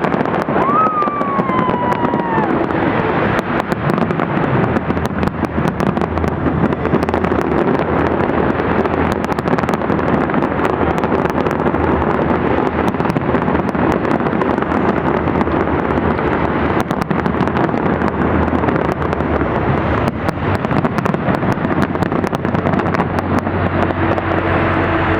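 Fireworks display going off: many sharp bangs and crackles over a dense, steady wash of noise, with a short falling whistle about a second in.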